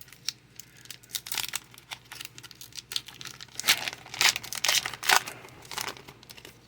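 Foil wrapper of a Pokémon card booster pack crinkling and tearing as it is opened, in irregular crackles with the loudest rips about four to five seconds in.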